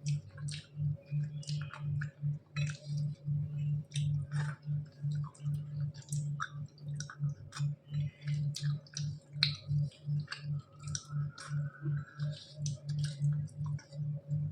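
Close-up eating sounds of rice and curries being chewed: wet mouth clicks and smacks come irregularly, several a second. Beneath them runs a low hum that pulses about three times a second.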